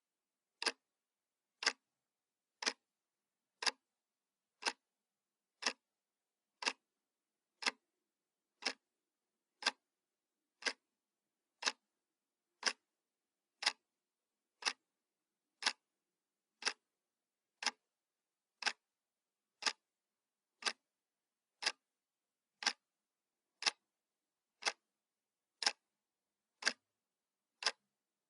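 Clock ticking sound effect: short, sharp ticks, one a second, with silence between.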